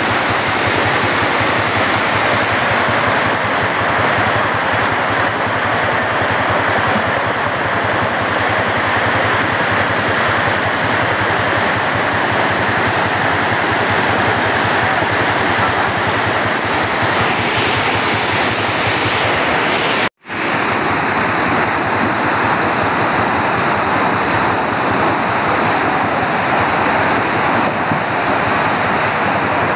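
Muddy floodwater rushing and churning, a loud, steady, continuous wash of water noise. It cuts out for an instant about two-thirds of the way through, then carries on.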